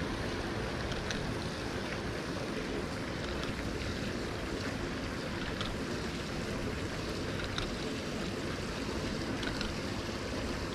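Steady rush of water pouring through a canal spillway, with a few faint ticks spaced about two seconds apart.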